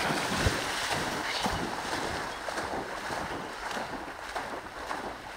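A dog plunging into a shallow creek and bounding through the water, with continuous heavy splashing that is loudest as it jumps in and slowly eases off.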